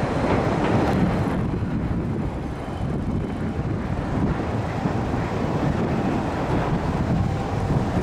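Wind buffeting the camera's built-in microphone: an uneven low noise that swells and dips without a clear tone.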